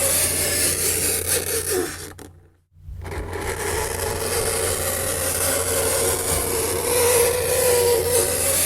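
Fingernails scraping across a chalkboard: a continuous harsh scrape with a wavering squeal that breaks off briefly a little over two seconds in and then resumes.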